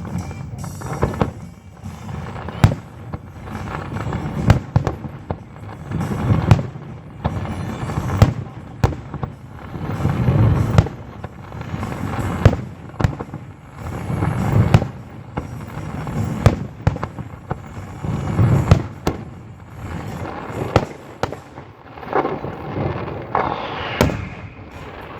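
Fireworks display: shells bursting in a steady run of sharp bangs, often several a second, with crackle and rumble between them.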